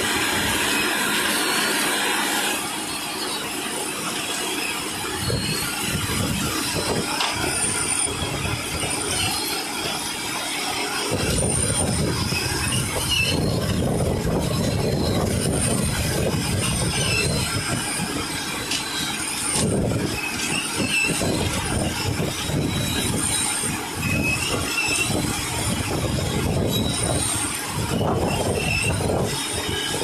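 Self-loading concrete mixer truck running with its drum turning, as sand and gravel pour out of the drum down the chute in a steady noisy rush. A heavier, lower rumble joins from about eleven seconds in.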